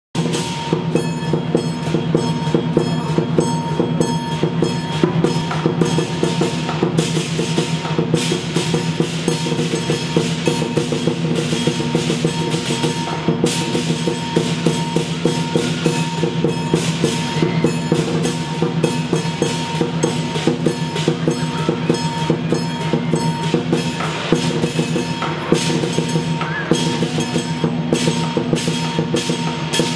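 Lion dance percussion: a large Chinese lion drum beaten in a fast, driving rhythm with clashing cymbals ringing over it.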